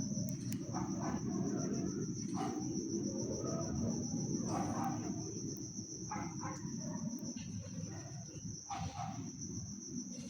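Crickets chirping in a steady, high, fast-pulsing trill over a low rumble, with short faint sounds breaking in every second or two.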